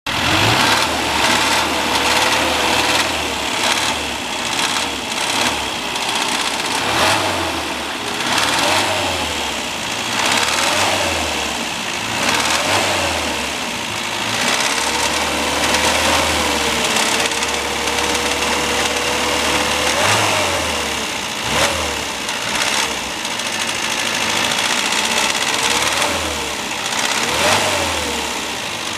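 Classic Mini's A-series four-cylinder engine running and being blipped, its pitch climbing and falling again and again and holding steady for a few seconds about midway, with sharp clattering throughout: the abnormal engine noise the car was towed in for.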